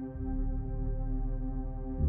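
Background ambient music: sustained, held synth-like tones with a deep bass note that changes a moment in.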